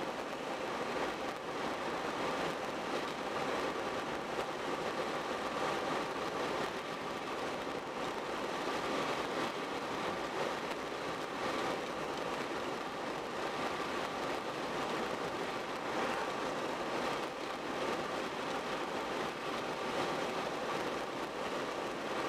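Steady road noise from a car driving at speed: tyre hiss on the pavement with wind, under a faint steady hum.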